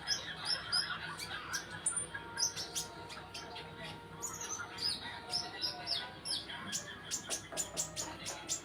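Several kolibri ninja (sunbirds) chirping and twittering together in quick, short, high-pitched notes and sharp ticks, packed densely with little pause.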